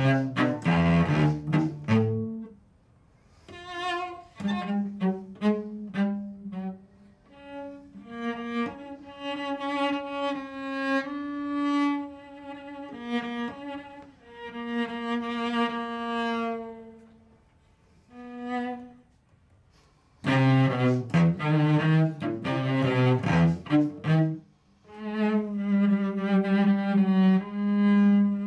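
Solo cello played with the bow: loud multi-note chords at the start, then quieter separate phrases broken by pauses. Loud chords return about two-thirds of the way in, followed by a held low note with a melody sounding above it.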